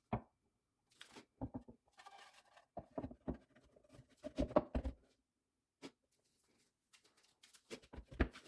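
Light knocks and taps of a workpiece being handled and pushed down onto the dowel pins of a CNC vacuum fixture. They come in small clusters: about one and a half, three, and four and a half seconds in, and again near the end.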